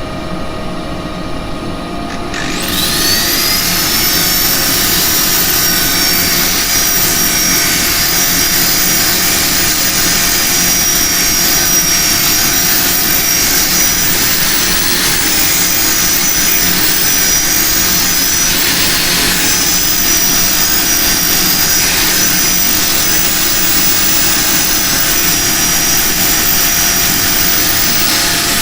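A high-speed electric motor switched on about two seconds in, its whine rising as it spins up and then running steadily with a loud hiss, over the lathe's steady hum.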